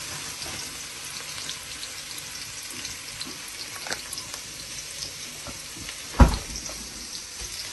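Chopped onions frying in hot oil in a pan: a steady sizzle with small crackles. A single loud knock about six seconds in.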